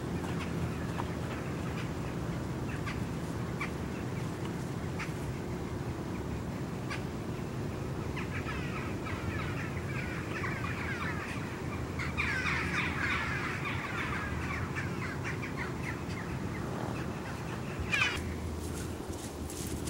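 A flock of birds calling, with single calls at first and then a dense chatter of many overlapping calls from about the middle, loudest a little past the middle. A short, sharp, loud sound near the end.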